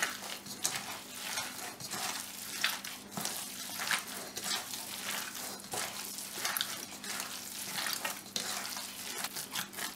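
Hands kneading raw chicken mince with chopped onion and spices in a steel bowl, like dough, for kebab mixture: irregular squishing strokes of the wet meat.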